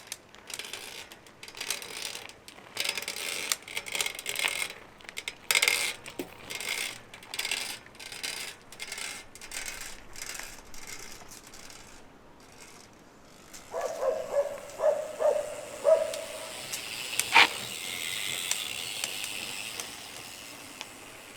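Shimano XT FH-M8110 Micro Spline rear hub being worked by hand: irregular freehub clicking and ratcheting, then a quick run of short squeaky creaks followed by a single sharp click. This is the hub creak that greasing usually cures.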